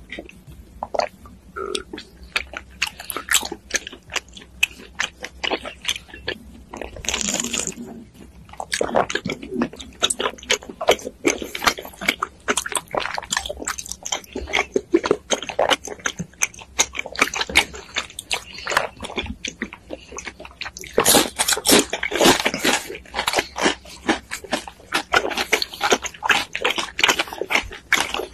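Close-miked slurping of bubble milk tea through wide boba straws, mixed with the wet clicking of tapioca pearls being chewed. There are longer slurps about seven seconds in and again around twenty-one seconds in.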